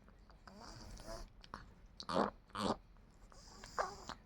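Chihuahua making soft, high, gliding whines, with two short, louder breathy sounds around the middle.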